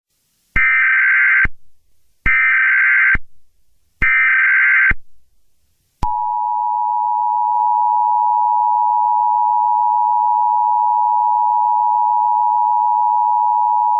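Emergency Alert System SAME header: three one-second bursts of buzzy digital data tones, about a second apart. About six seconds in, the steady two-tone EAS attention signal starts and holds, announcing that an emergency message follows.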